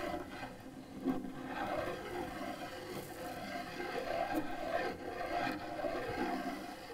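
A cello bow scraping and rubbing across the cello in short, uneven strokes, giving a scratchy noise rather than clear pitched notes.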